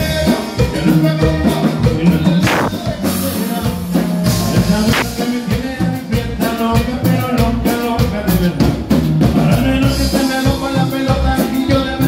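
Live norteño band playing: button accordion and saxophone over electric bass and a drum kit keeping a steady beat.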